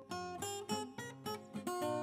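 Background music: a plucked string instrument picking out notes, a few a second, each ringing on after it is struck.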